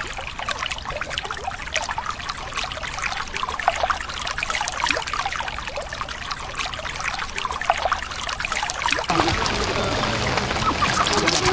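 River water splashing and trickling close by as someone bathes and washes a cloth in it, a dense patter of small drips and splashes; about nine seconds in it changes to a fuller, steadier water sound with more low rumble.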